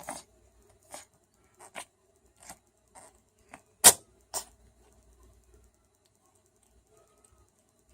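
A run of short, sharp sniffles and sneezes, about nine in four and a half seconds, the loudest about four seconds in, then it stops.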